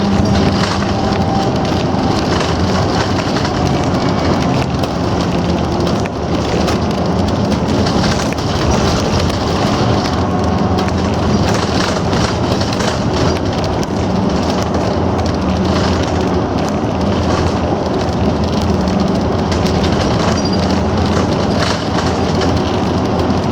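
A bus driving along a road, heard from inside the cabin: a steady engine hum with constant tyre and road noise.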